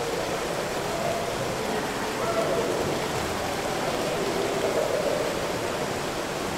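Steady rushing water noise, with faint muffled voices drifting through it.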